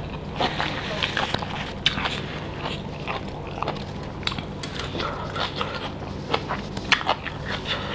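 Close-miked chewing and wet mouth sounds of a person eating pork curry and rice by hand, with many small irregular clicks and crackles, over a steady low hum.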